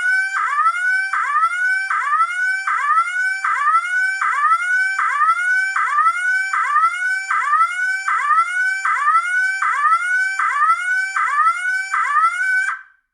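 Internal piezo security siren sounding a loud, harsh rising whoop over and over, a little under two sweeps a second, then cutting off abruptly near the end.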